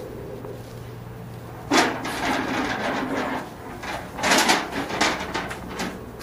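Low wooden bench dragged and set down on concrete paving: a sudden knock, then about a second and a half of scraping, then further shorter scrapes and knocks.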